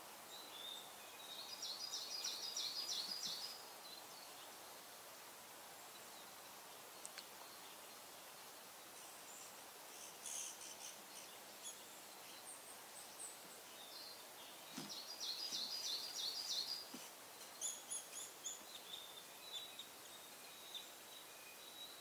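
Small songbirds singing in woodland. Twice, a bird gives a quick run of high repeated notes about two seconds long, the two runs roughly thirteen seconds apart. Shorter, fainter high calls come in between and toward the end.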